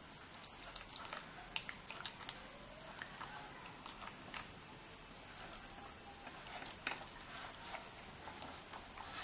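Faint wet squishing and scattered small irregular clicks of a silicone basting brush dabbing and spreading thick masala paste over the scored skin of a whole fish.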